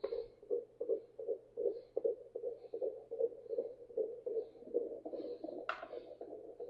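A home fetal Doppler's speaker plays a fetal heartbeat as a fast, even whooshing pulse, close to three beats a second. A short click of the probe comes near the end.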